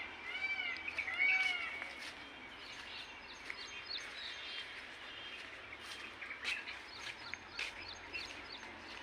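A bird calling in a quick run of short rising-and-falling notes during the first two seconds, then only faint scattered chirps over outdoor background noise.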